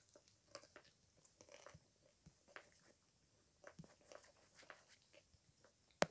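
Faint, irregular crunching of someone chewing crunchy food close to the microphone, with one sharp click near the end.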